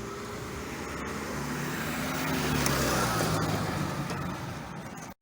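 A motor vehicle passing by, its engine and tyres growing louder to a peak about three seconds in and then fading.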